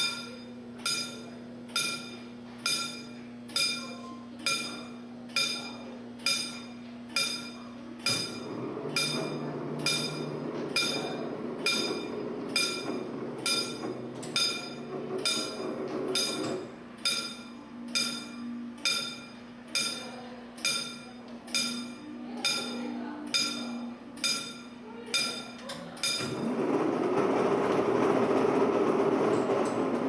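Level-crossing warning bell on a museum crossing-alarm display, struck over and over at a steady pace as the red signal lamps flash. About 26 s in, the ringing stops and a louder rushing noise takes over.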